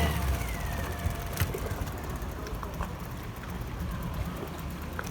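Boat engine running with a low, steady rumble, and one sharp knock about one and a half seconds in.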